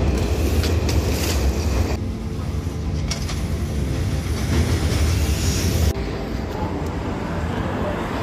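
Homemade 48-volt electric scooter with a chain-driven 2000 W motor being ridden on pavement: a steady vehicle noise that changes abruptly twice.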